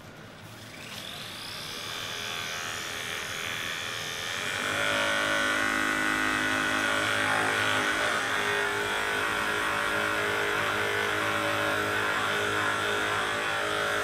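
Hypervolt percussive massage gun running, its motor whine rising in pitch over the first few seconds, then holding steady and louder from about four and a half seconds in as the head is pressed into the upper back and shoulder muscles.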